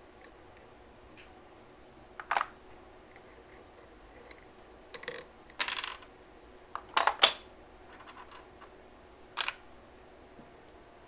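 Short metallic clinks as a screwdriver and small carburettor parts are handled and set down against a motorcycle carburettor rack and workbench, about half a dozen scattered through, the loudest about seven seconds in.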